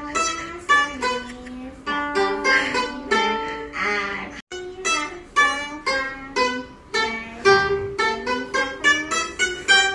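A Chinese plucked lute playing a quick melody, with separate plucked notes that each ring and fade. The sound briefly cuts out about four and a half seconds in.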